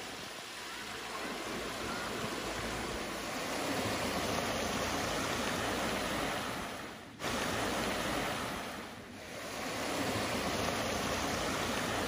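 Water of a shallow rocky creek running over small cascades: a steady rush, briefly dipping about seven seconds in and again around nine.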